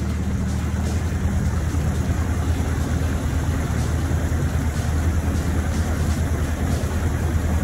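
Outboard motor of a small boat running steadily under way as the boat picks up speed.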